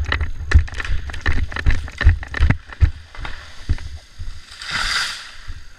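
Irregular thumps and knocks picked up by a helmet-mounted camera as the wearer moves, heaviest in the first few seconds, followed by a brief rustling hiss about five seconds in.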